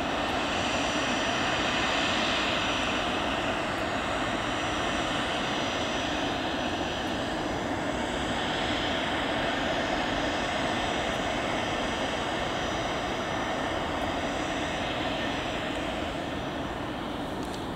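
A business jet's twin rear-mounted turbofan engines running at taxi power: a steady rush with a thin high-pitched whine that fades out near the end.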